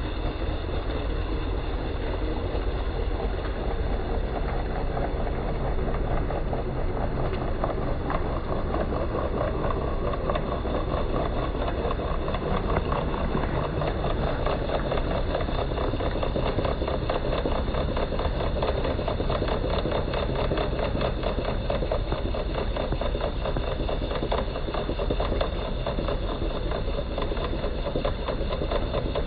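Genie IntelliCode IS900A screw-drive garage door opener running continuously, its motor turning the long threaded screw freely with the trolley disengaged, with a steady hum and a fast, even rattle.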